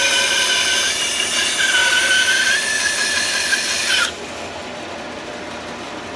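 Bandsaw blade cutting through a small cedar log: a loud, steady whining and rasping. About four seconds in the cutting sound stops abruptly, leaving a quieter steady running noise.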